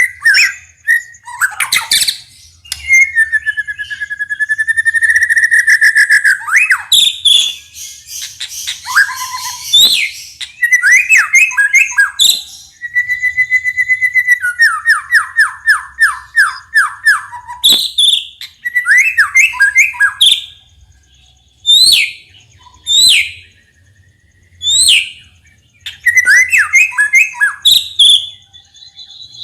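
White-rumped shama (murai batu) singing a long, varied song. It mixes clear drawn-out whistles and dense rattling chatter with a fast run of repeated falling notes, then turns to sharp notes spaced out by short pauses in the last third.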